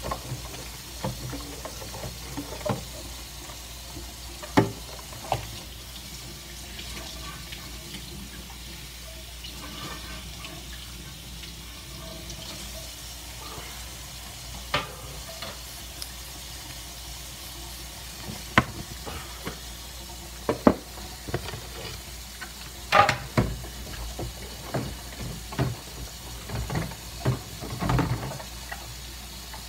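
Baby Virginia opossum chewing a piece of fruit: irregular wet smacking and crunching bites, busier and louder in the last third.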